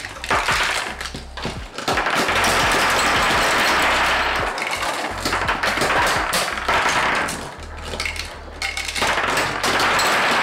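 Rapid clicking and clattering of B-Daman toy launchers firing small plastic marbles across a glass-topped table, with marbles and target parts tapping and scattering as the towers break apart. Background music with a steady bass line plays underneath.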